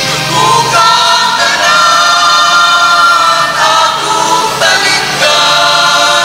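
Church choir singing a hymn in long held notes, a new phrase about every second or two.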